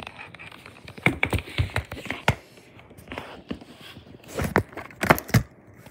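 Handling noise: irregular taps, knocks and scrapes as things are picked up and moved about, in two busier clusters about a second in and near the end.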